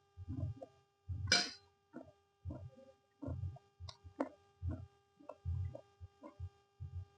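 A person chewing mouthfuls of fried noodles close to the microphone, in short irregular bites about every half second, with one louder, sharper mouth sound about a second in. A steady electrical hum runs underneath.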